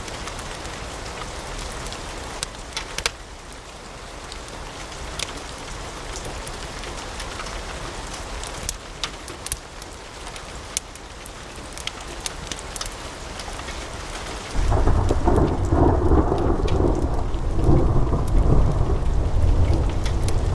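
Wood fire crackling, with a steady hiss and scattered sharp pops and snaps. About fourteen seconds in the sound abruptly turns into a louder, deeper rumble with the crackle's high hiss gone.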